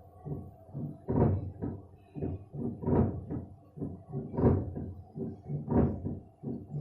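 Samsung WW60K42106WDUA front-loading washing machine knocking loudly as its drum turns back and forth, trying to spread the laundry evenly before spinning. Heavy knocks come about every second and a half, with lighter ones between them. The knocking is the sign of an unbalanced load that the machine keeps failing to even out; the owner says the transport bolts are removed.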